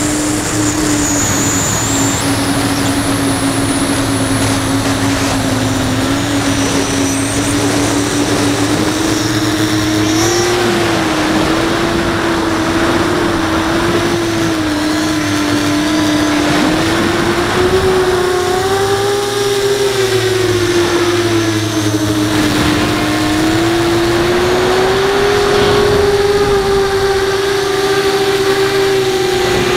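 FPV quadcopter's brushless motors and 5-inch propellers whining in flight. The pitch drifts up and down with the throttle and climbs higher in the second half.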